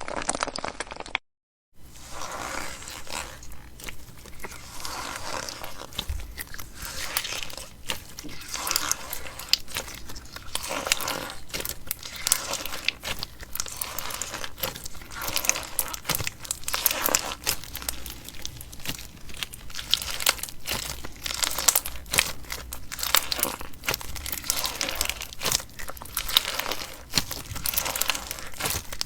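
Slime being squeezed and pressed by hand, giving a dense run of crackling, crunching pops, with a brief silent gap about a second in.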